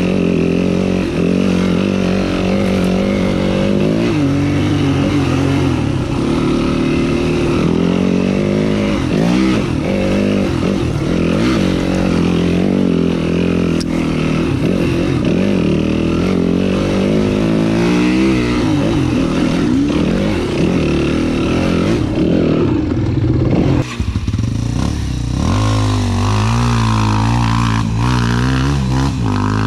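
Enduro dirt bike engine running under constantly changing throttle on a trail, its pitch rising and falling. About three-quarters of the way through, it dips sharply and then settles to a lower, steadier pitch.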